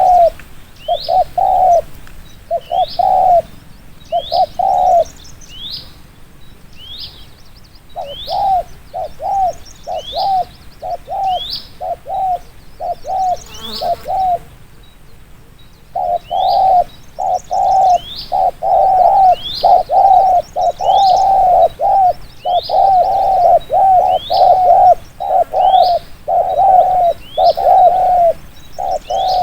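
Spotted dove (cu gáy) giving the rapid 'thúc gù' coo: short, low coos in quick runs, pausing twice and then running almost without break through the second half. A small bird's short rising chirp repeats faintly behind it, about once or twice a second.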